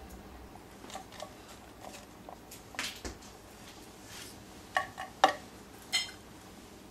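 Handling of a blue plastic cup of popcorn at a counter: scattered light clicks and knocks as popcorn is picked out and eaten, with a few sharper taps on the cup, the loudest a little past five seconds in.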